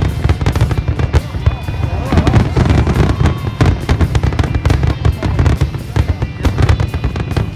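Fireworks display: many bangs a second over a constant low rumble.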